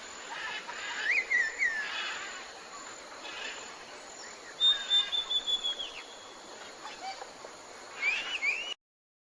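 Outdoor ambience with short high chirping calls, a few falling glides and one held whistled note, over a steady background hiss; the sound cuts off abruptly shortly before the end.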